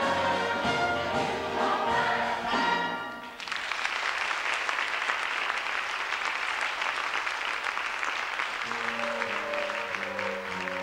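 A show choir and its accompaniment end a song about three seconds in, and the audience breaks into applause. About nine seconds in, the instrumental introduction to the next piece starts while the clapping goes on.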